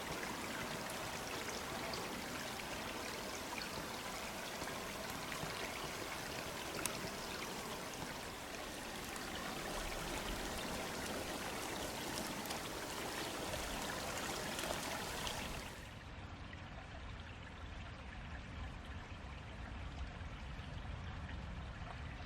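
Steady rush of running water, like a stream. About sixteen seconds in it suddenly turns quieter and duller.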